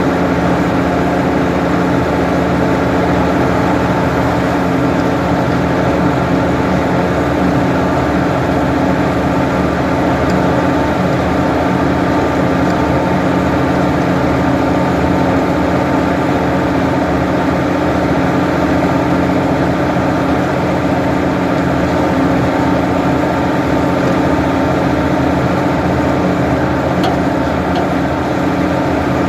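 Ford 550 backhoe's engine running at a steady speed, with an even, unchanging drone.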